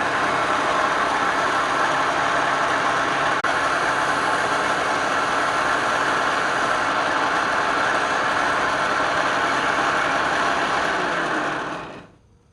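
Wood lathe running steadily, a continuous loud machine noise with a very brief dip about three and a half seconds in, dying away near the end.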